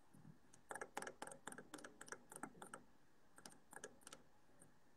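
Near silence with faint, irregular light clicks: a run of about a dozen over two seconds, then a few more near the end.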